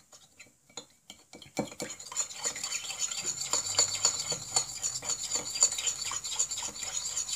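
Silver spoon stirring honey, water and salt in a small glass bowl, clinking and scraping against the glass in quick strokes to dissolve the honey. A few scattered taps at first, then continuous fast stirring from about a second and a half in.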